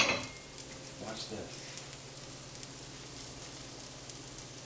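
Faint, steady sizzling and crackling of frozen chicken tenderloins cooking in the oven, over a low steady hum. A knock dies away right at the start.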